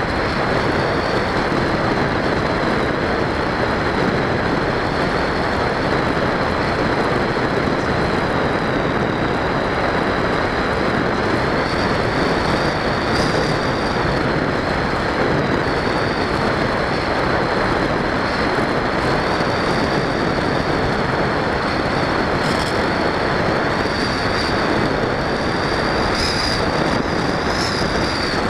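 Steady rush of air with a high, slightly wavering whine from the Multiplex EasyStar 2 RC plane's electric pusher motor, heard through its onboard camera in flight. The whine grows a little louder near the end.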